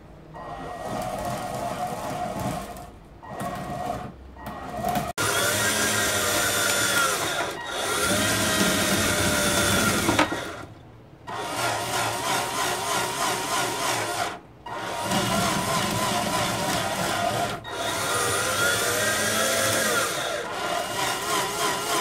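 Small electric motor of a remote-control model ship's anchor winch running in several spells with short stops, its pitch rising and falling as it winds the anchor chain.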